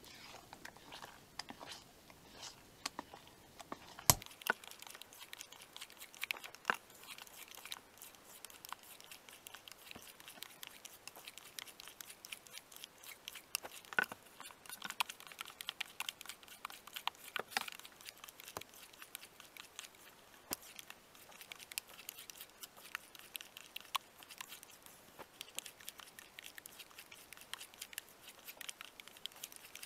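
Spatula beating a runny bread dough in a plastic measuring jug, lifting it to work air in: a faint, continuous run of small wet clicks and squelches, with a few louder clicks about four, fourteen and eighteen seconds in.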